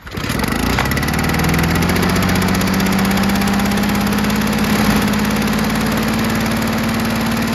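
Victa two-stroke rotary mower engine firing on the pull start and climbing over about the first two seconds to a steady governed speed. It holds just under 3400 rpm with no load, the speed a stiffer replacement governor spring on the G4 carburettor was fitted to reach after the engine had been under-revving.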